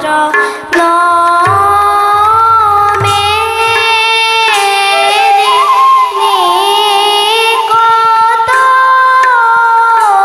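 Assamese borgeet sung by a girl's voice with long, gliding held notes, accompanied by harmonium and bamboo flute, with low khol drum strokes near the start.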